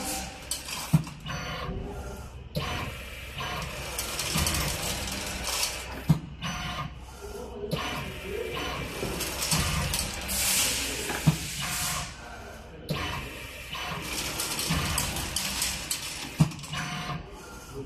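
Automatic washer and nut assembly machine running through its cycle: a sharp click about every five seconds, each followed by a few seconds of hissing, over a steady low hum.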